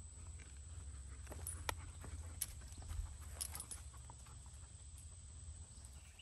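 Faint, scattered footsteps crunching on dry leaf litter, over a low steady rumble and a thin, steady high-pitched insect drone.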